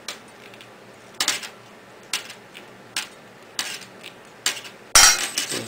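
Sharp metallic clinks and clacks from steel pliers and snipped coat-hanger wire being handled around tin cans on a tile counter, coming irregularly about once a second, with a louder clatter near the end.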